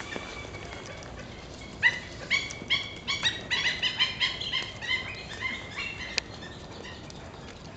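A bird's rapid series of short, sharp, high-pitched calls, about a dozen in four seconds, starting about two seconds in, with a single sharp click near the end.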